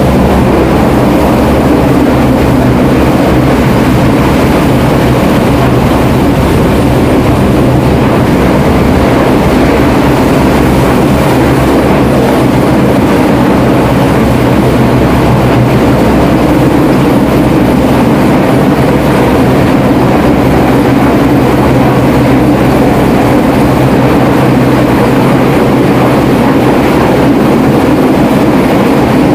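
Search-and-rescue helicopter hovering close overhead during a winch hoist: a loud, steady rotor and engine drone.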